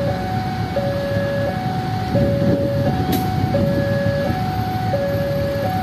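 Diesel-electric locomotive idling with a low rumble, under a two-tone electronic warning signal that alternates between a lower and a higher note, each held about three-quarters of a second. A faint click about three seconds in.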